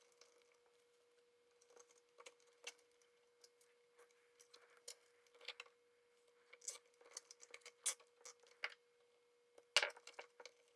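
Faint, scattered light clicks and rustles of a motorcycle wiring harness being handled and zip-tied, with a cluster of clicks near the end. A faint steady hum runs underneath.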